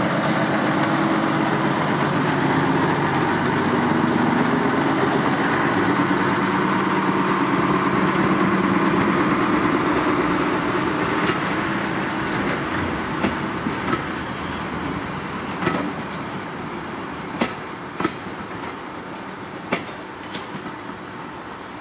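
Diesel shunting locomotive's engine running as it pulls a rake of coaches away, steady at first and fading as the train draws off. In the second half come a series of sharp clicks of the wheels over rail joints and points.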